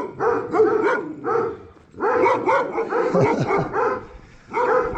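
Young dogs barking and yelping in quick, short repeated calls, with brief lulls about two seconds in and again about four seconds in.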